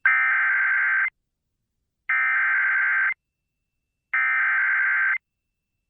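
Emergency Alert System SAME header: three bursts of warbling digital data tones, each about a second long with a second's gap between them, carrying the coded Severe Thunderstorm Warning ahead of the alert.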